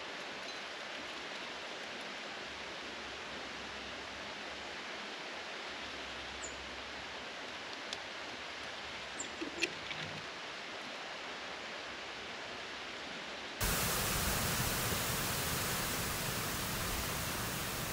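Steady outdoor background hiss with a few faint, short high chirps and small ticks in the middle. About three-quarters of the way through, the hiss suddenly becomes louder and brighter.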